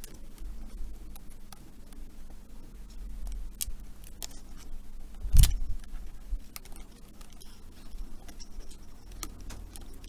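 Small clicks and taps of hands and tools working on an open laptop's internals, with one louder knock about halfway through.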